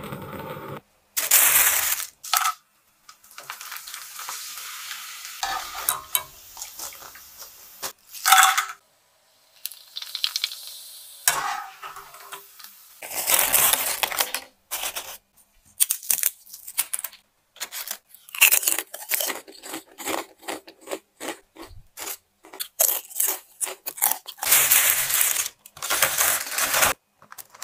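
Prawn cracker cooking sounds: hot oil sizzling in a pan, then crisp fried prawn crackers crackling and crunching. Near the end, dry uncooked cracker chips rattle against crinkling plastic as they are poured into a zip-lock bag.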